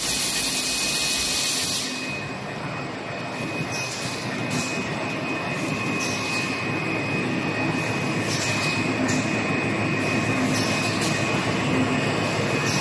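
Automatic portable-pack wet wipes machine running. It makes a dense, steady mechanical noise with a thin high whine. A loud hiss in the first two seconds drops away, and short hissing bursts then come in pairs every second or two.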